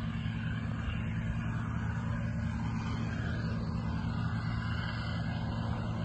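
A motor vehicle engine running steadily, a constant low hum.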